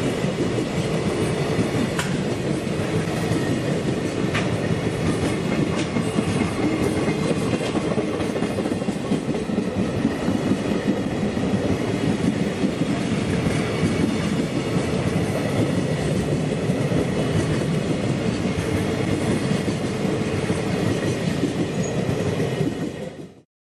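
JR Freight container train's Koki flat wagons rolling past on the rails, a steady heavy rumble with the clickety-clack of wheels over rail joints. The sound cuts off suddenly near the end.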